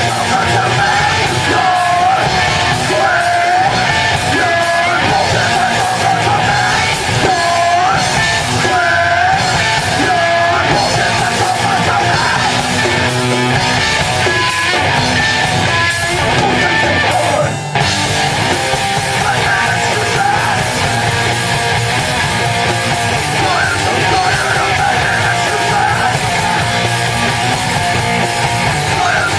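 Live heavy punk-rock band playing loudly, with distorted guitars, drums and yelled vocals.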